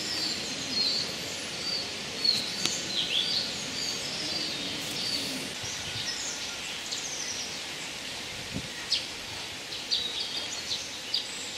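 Small songbirds chirping and trilling in short, scattered phrases over a steady outdoor hiss, with a couple of faint clicks.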